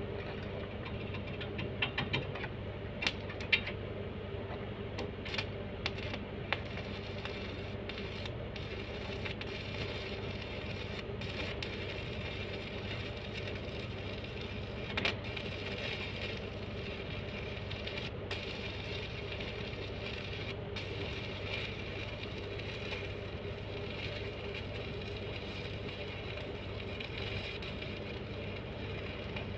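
A steady mechanical hum, with sharp clicks and metallic rattles during the first several seconds and again about fifteen seconds in.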